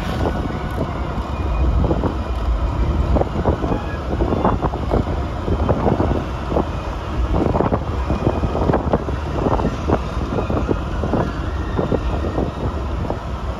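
A car driving on the road: a steady low engine and road rumble, with wind buffeting the microphone and frequent short irregular knocks and rattles.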